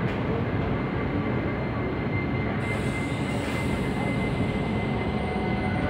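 Indian Railways passenger coaches rolling past along the platform: a steady rumble of wheels on rail, with a thin high squeal that comes in about two seconds in.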